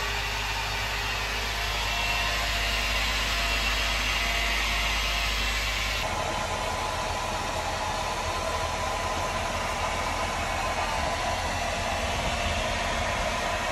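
Jeep Wrangler JL's rear driveline and Dana 44 axle turning in gear with the rear wheels and a brake rotor removed, making a steady grinding drone with faint whining tones. The noise keeps on with no brakes on the axle, so it is not the brakes; the owner suspects the driveline. The sound changes abruptly about six seconds in.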